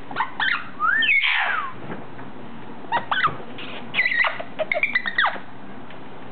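Orange-winged amazon parrot whistling and squawking: a loud rising-then-falling whistle about a second in, then a run of short chirps and squawks between about three and five seconds.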